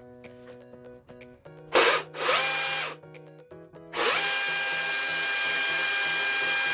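DeWalt DCM575 cordless chainsaw's electric motor test-run after repair: two short runs about two seconds in, then a longer steady run from about four seconds in, each starting with a rising whine as the motor spins up.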